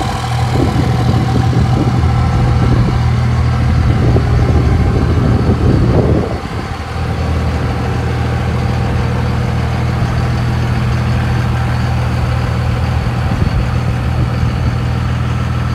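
Idling diesel engine of a 2000 Dodge Ram 3500 running steadily. Irregular low rumbling rides over the hum for the first six seconds, then the hum runs on evenly.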